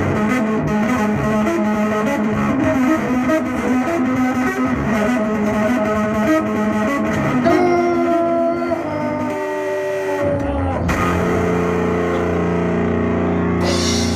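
Electric guitar played through distortion and effects: busy, dense playing gives way about halfway through to notes bending downward in pitch, then a held, droning chord rings on for the last few seconds.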